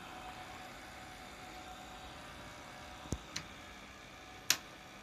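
Faint steady hum and hiss with a thin high tone, broken by sharp clicks: two close together about three seconds in and a louder single click near the end.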